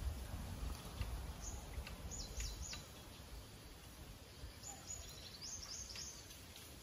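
A small bird calling outdoors in short, high, falling chirps, in two bursts a few seconds apart, over a faint low rumble that dies away in the first few seconds.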